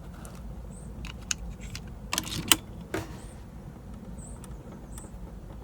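Scattered light clicks and knocks from a shooting stand shifting as the shooter rests on it, over a low steady rumble. The stand moves whenever weight goes onto it.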